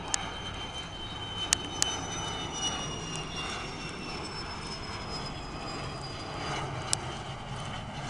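Aero L-39 jet trainer's single turbofan engine whining as the jet comes in on a gear-down approach, the high whine sliding slowly down in pitch over the steady jet noise. A few sharp clicks are heard along the way.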